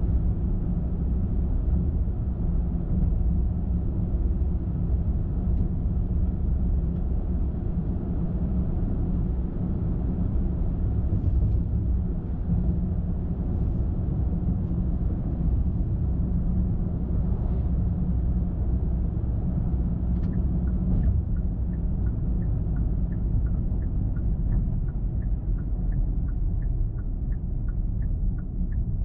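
Car driving at night: a steady low rumble of tyres and engine on the road. About three-quarters of the way through, a turn-signal indicator starts ticking, about two ticks a second.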